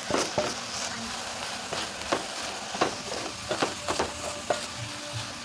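Minced beef with onions and spices sizzling in a metal pot while a wooden spoon stirs it, with irregular scrapes and knocks of the spoon against the pot over a steady frying hiss.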